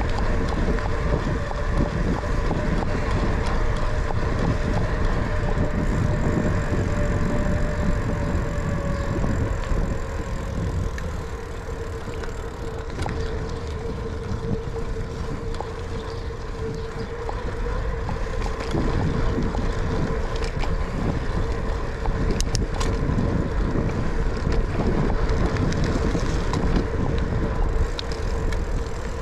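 Wind buffeting the microphone and tyres rolling on asphalt as a bicycle is ridden along a paved path, with a steady hum underneath. The rushing noise drops for several seconds in the middle, then builds again.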